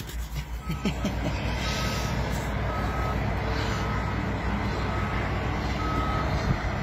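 Vehicle reversing alarm beeping steadily, a short single tone about once a second, over a steady low rumble.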